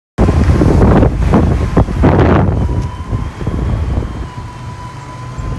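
Storm wind gusting hard against the microphone: loud buffeting rumble in surges that ease off after about half way, with a thin steady whistle underneath.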